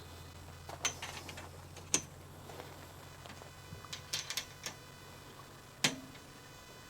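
Scattered sharp clicks and knocks from the frame tubes, clamps and Allen key bolts being handled and fitted during assembly: single clicks about 1 and 2 seconds in, a quick run of clicks around 4 seconds, and the loudest knock near 6 seconds, over a faint low hum.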